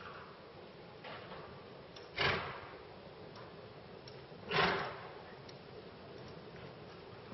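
A horse snorting twice, about two and a half seconds apart, each a short rush of breath that fades quickly.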